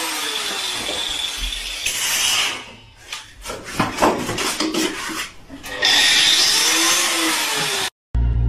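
Corded power drill running against a wall, its whine rising and falling in pitch. The drill cuts out in the middle for a few seconds of knocks and rattles, then runs again and stops abruptly near the end.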